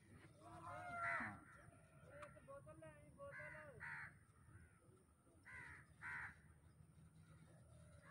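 Crows cawing in short, harsh calls, mostly in pairs, the loudest about a second in.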